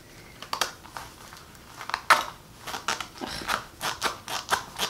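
A small zippered fabric makeup bag being handled and its zipper worked open, giving a string of short scratchy rasps and clicks, with a longer rasp about two seconds in.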